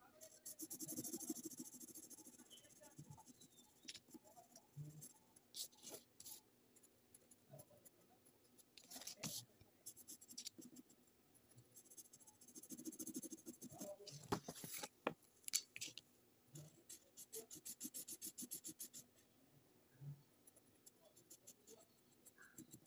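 Felt-tip sketch pen scratching faintly on paper as a drawing is coloured in, in bursts of quick back-and-forth strokes.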